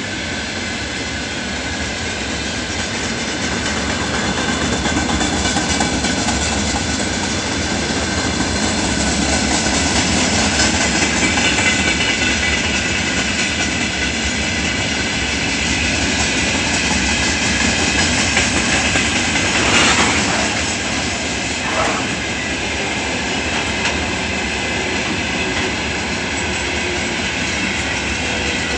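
Loaded freight wagons of a long train rolling past at close range, their wheels clattering steadily over the rail joints, with a thin wheel squeal. A sharp clank about two-thirds of the way through is the loudest moment, followed by a lighter one two seconds later.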